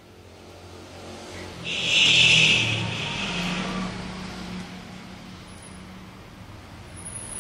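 A motor vehicle passing by: its engine swells over the first two seconds to a loud hissing peak, then fades to a low hum.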